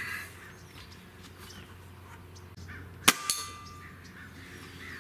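A single shot from a Gamo Whisper Fusion Mach 1 .22 gas-piston break-barrel air rifle about three seconds in: a sharp crack with brief ringing. A fraction of a second later comes a fainter knock, the pellet hitting the red pipe target and knocking it down.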